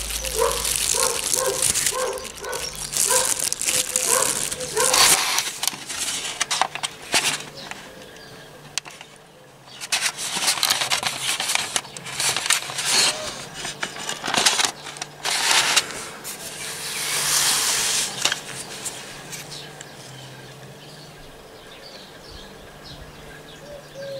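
Plastic wrap crinkling and rustling as it is handled around dyed hard-boiled eggs, in irregular bursts. During the first few seconds a short chirp repeats about twice a second.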